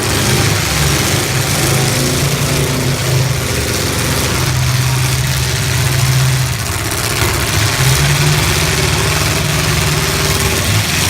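Engines of several full-size stock demolition derby cars running loudly together, their pitch shifting up and down as they rev and move, over a steady wash of noise.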